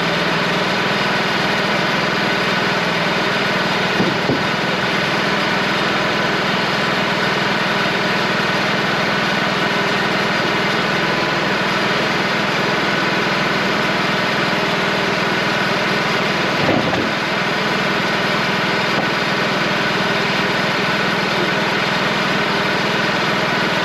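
Wood-Mizer LT35 hydraulic portable sawmill's engine running steadily, with two brief knocks, one a few seconds in and one about two-thirds through.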